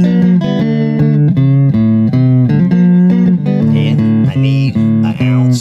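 Slow country-style guitar music with a bass line: plucked notes changing in a steady rhythm.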